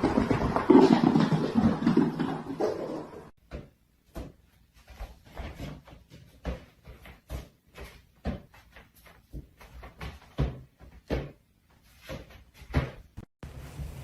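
A loud, dense sound for the first three seconds or so stops abruptly. A long run of irregular sharp knocks and clacks follows, several a second.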